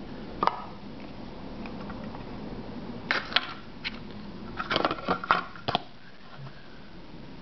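Hard clear plastic card box being handled and opened: sharp plastic clicks and taps, one about half a second in and two quick clusters around three and five seconds in.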